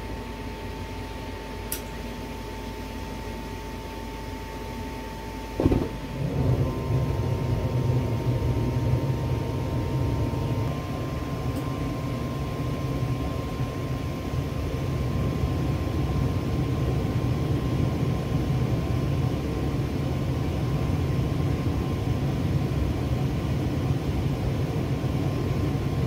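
Gas furnace running a heat cycle: a steady hum with a thin whine, then a sudden thump about six seconds in. After the thump a louder, low rumble of burner and blower runs on steadily.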